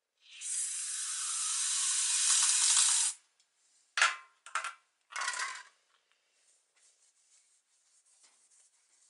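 Aerosol can of spray lubricant hissing steadily for about three seconds as it soaks the honed cylinder walls of an engine block, followed by three short spurts about a second apart. Faint rag rubbing on the bore near the end.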